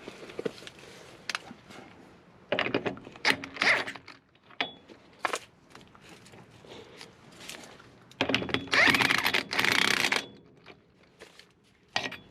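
Ratchet and socket clicking in two short spells as a stuck lug nut is worked loose from a wheel spacer, the second spell louder. A few single metal knocks fall in between.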